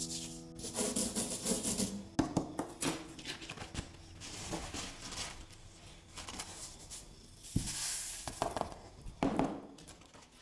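Coloured sand scraped and sprinkled from a plastic spoon onto sticky paper, then the paper sheet lifted and shaken so the loose sand hisses off it. Paper rustling and a few sharp taps are heard among the sand sounds.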